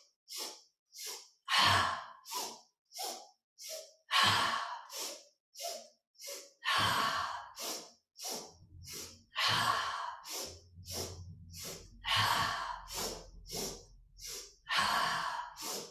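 A woman doing the yoga 'breath of joy': three short, sharp inhales followed by one long, forceful exhale, repeated about six times in a steady rhythm.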